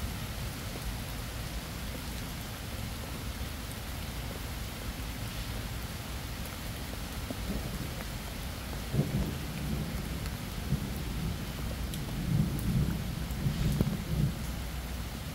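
Steady rain, with thunder rumbling in from about halfway through and loudest a couple of seconds before the end.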